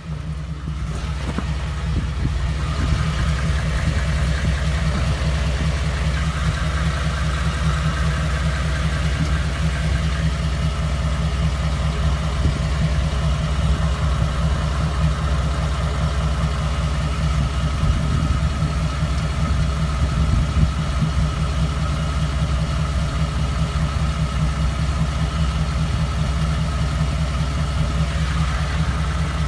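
Ford F-150's 5.0 L V8 idling with a steady, loud running sound that grows over the first two seconds. The owner hears a ticking and a rough idle in it that he knows is not normal, cause unknown.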